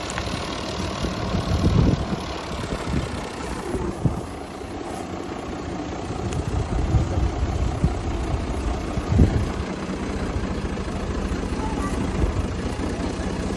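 Combine harvester engine running steadily with a continuous low mechanical drone, with a couple of short low surges about two seconds and nine seconds in.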